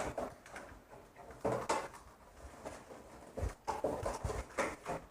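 Irregular clicks and knocks of plastic model train cars being lifted and set back onto the track by hand, as the train is swapped round and re-railed.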